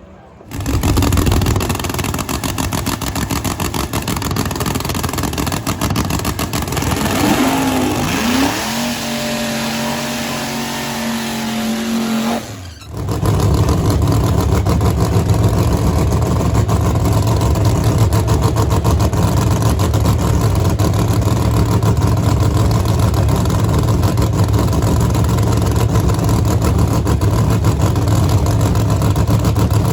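Drag race car engine running loud with a choppy firing pulse. Partway through, a whine rises and holds for a few seconds. The sound drops out briefly about 13 seconds in and comes back as a steady engine drone.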